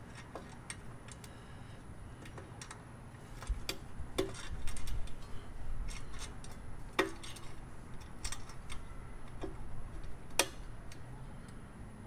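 Scattered metallic clicks and clinks of bolts and nuts being handled and fitted to a train horn's mounting bracket by hand, irregular, with a cluster of sharper clinks a few seconds in and another near the end.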